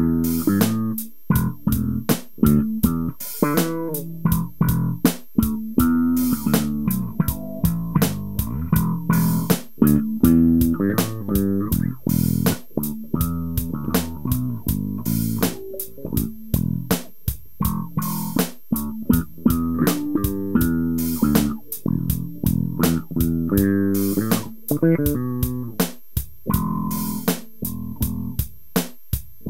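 Warwick RockBass Streamer electric bass played through a Korg Pandora PX5D, a continuous funky line of short plucked notes with sharp clicking attacks. The strings are freshly boiled clean and sound like new.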